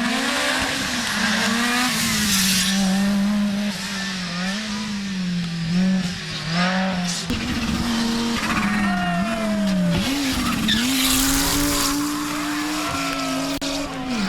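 Rally car engine running hard at high revs, its note rising at first, then holding steady with several brief dips. Bursts of hiss come about two and eleven seconds in.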